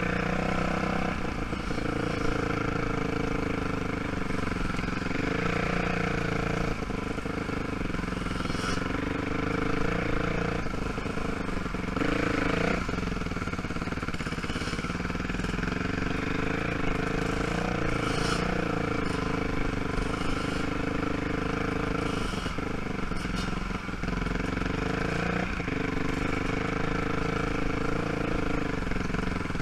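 ATV engine running at low speed, its pitch rising and falling a little with the throttle, with a few short knocks and clatter along the way.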